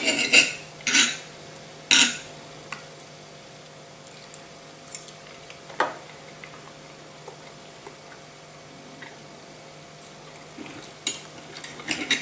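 Steel knife and fork clinking and scraping against a stoneware bowl as food is cut: a few sharp clinks in the first two seconds, a single click near the middle, and another run of clinks near the end. A faint steady hum sits underneath.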